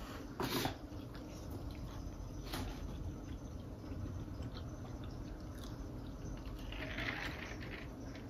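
Eating at close range: chewing, and plastic forks clicking and scraping in styrofoam takeout trays of fried catfish and fries, the loudest scrape about half a second in. Near the end comes a short slurp through a straw from a foam cup.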